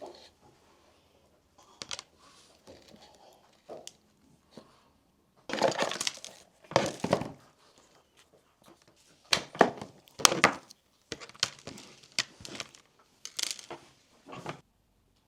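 Packaging being handled: plastic and cardboard crinkling and rustling in irregular bursts, with small knocks. The loudest stretches come about halfway through, and the handling stops shortly before the end.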